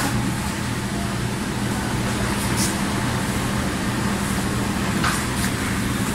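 Steady machine drone, a low hum under an even rushing noise, with a couple of faint clicks.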